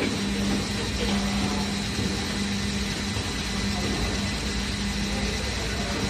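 Injection moulding machine running with the mould clamped shut mid-cycle: a steady low hum over even machine noise.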